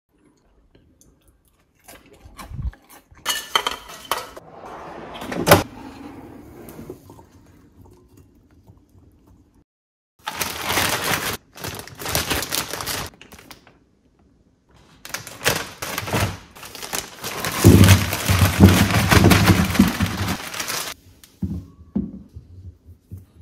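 Handling a plastic bag of potatoes: the bag crinkles in bursts, and potatoes knock and roll onto a hard kitchen benchtop with heavier thuds in the second half. A sharp single knock comes about five seconds in.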